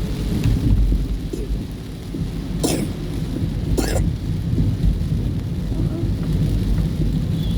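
Thunderstorm: heavy rain with a deep, continuous rumble, heard from inside a vehicle. Two short, sharp scraping sounds come about a second apart midway.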